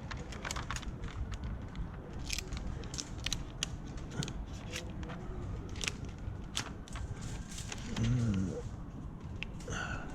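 Crackling and clicking of window tint film being handled and pressed onto car door glass, over a steady low background noise. A short low pitched sound comes about eight seconds in.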